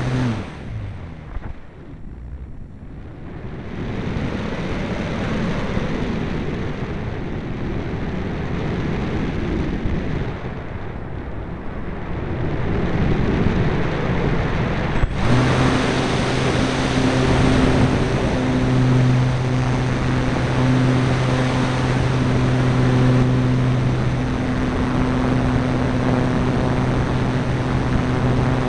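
Parkzone Radian motor glider's electric motor and propeller running with a steady tone, cutting off within the first second, leaving wind rushing over the onboard camera as the plane glides. About halfway through, a click, and the motor starts again and runs steadily to the end.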